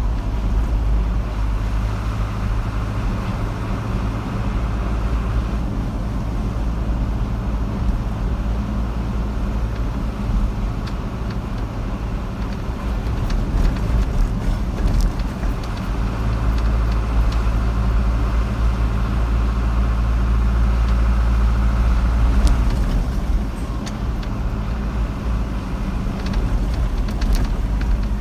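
A car driving along a road, with steady low engine and road rumble and tyre noise swelling slightly now and then.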